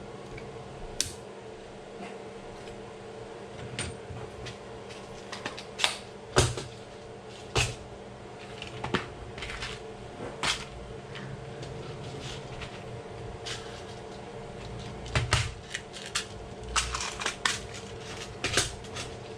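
Irregular clicks and clatters of small hardware and parts being handled and sorted, busiest near the end, over a steady faint hum.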